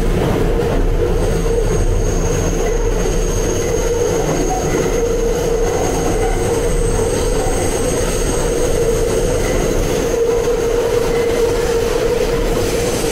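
A New York City Subway R211A car running between stations, heard from inside the car: a steady, loud running noise with a thin, high-pitched whine through most of it.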